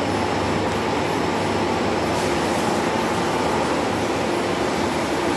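Hydraulic test rig's pump running with a steady, even mechanical noise while it drives a lifeboat hydraulic ram.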